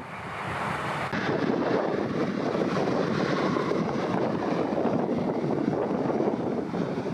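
Aircraft engine noise swelling and then holding steady and loud as a plane passes, with wind buffeting the microphone.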